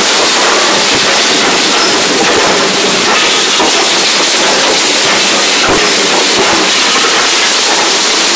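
Bucket-chain dredger at work: a loud, steady rattle of the steel bucket chain mixed with water rushing and splashing through the chutes.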